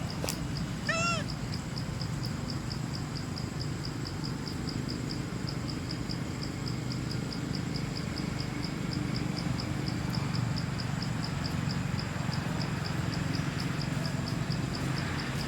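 A monkey gives one short, arched, squealing call about a second in. Under it runs a steady high chirping that pulses about four times a second.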